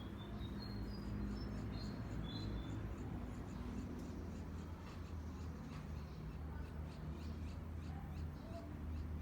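Small birds chirping: a quick series of short, high chirps in the first couple of seconds, then fainter rapid high ticks and chirps, over a steady low rumble.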